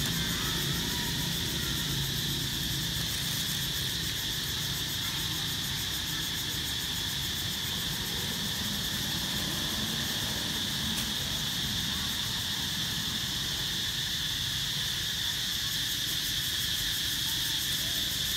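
Steady chorus of insects, a continuous high-pitched drone that holds unbroken throughout, with a low rumble underneath.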